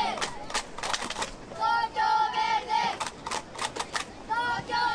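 Spectators chanting in unison in high voices, short sung calls in two groups, with sharp rhythmic clapping between the calls.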